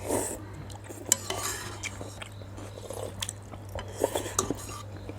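Cutlery clinking against bowls while eating noodle soup: scattered short, sharp clicks over a steady low hum.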